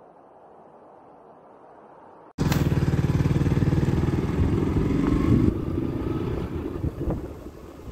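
Faint steady background noise, then, a little over two seconds in, a sudden cut to a motorcycle engine running loud and steady while riding. After about five and a half seconds the engine eases off and wind noise on the microphone comes in.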